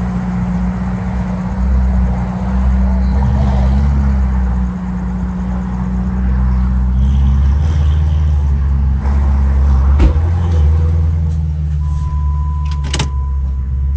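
A car engine running with a steady low drone, heard from inside a vehicle cabin. A couple of sharp clicks come about ten and thirteen seconds in, and a steady high beep starts near the end.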